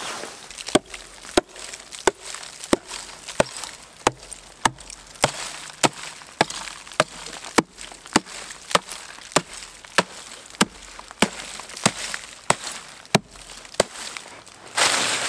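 Axe chopping into the frozen-over water of a fire pit, breaking up the ice with sharp, even strikes about every 0.6 s, some twenty in all. Near the end the strikes stop and a louder rough crunching begins.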